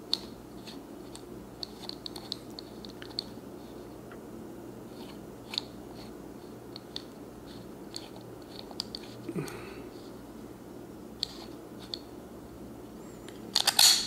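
Dial of a 1983 Slaymaker combination padlock being turned, giving scattered faint clicks, then a louder cluster of clicks and clacks near the end as the shackle is pulled open.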